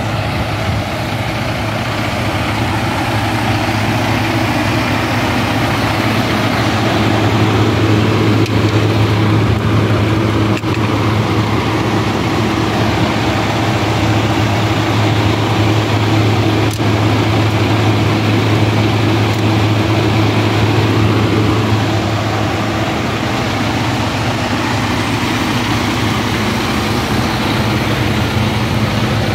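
Diesel engine of a 2021 Freightliner fire truck idling steadily at close range, a low, even hum that swells a little for a stretch in the middle.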